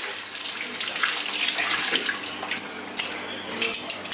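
Kitchen tap running into a sink while something is rinsed under the stream, the splashing rising and falling unevenly.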